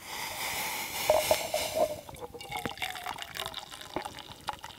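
Hot milk pouring from a metal canteen cup into a stainless steel milk frother pitcher. The pour is heavy for about two seconds, then goes on as a thinner trickle with small ticks.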